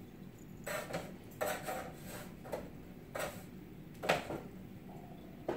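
Cookware clattering on a stovetop: a pan and utensils being handled and set down, making a string of short knocks and metal clinks, the loudest about four seconds in.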